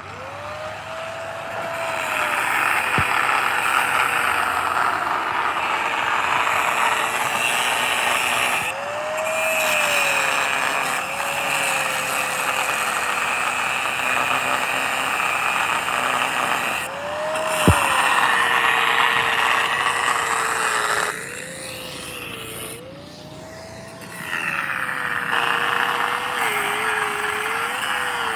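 Electric angle grinder cutting steel rebar stubs: a steady motor whine over the harsh hiss of the disc biting into the steel. The motor pitch rises several times as the disc eases off the bar. Near the end the cutting hiss drops away for a few seconds, then starts again.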